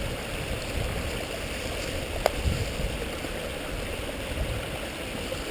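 Small stream of water running steadily over rocks in a steady rushing wash, with a single sharp click about two seconds in.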